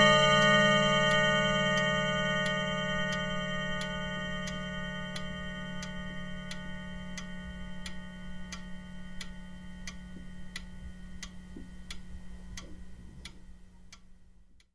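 Wall clock ticking steadily, about one and a half ticks a second, while the ringing of its last chime strike slowly dies away. The sound cuts off near the end.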